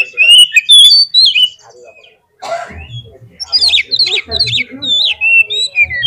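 Oriental magpie-robin (kacer) singing loud, rapid, varied whistled and chattering phrases. It breaks off briefly about two seconds in, then resumes.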